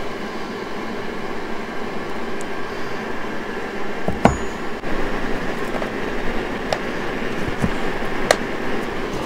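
A tabletop heater running with a steady hum, with a few light glass and metal clinks from a small glass jar and metal eyeshadow pans being handled, the sharpest about four seconds in.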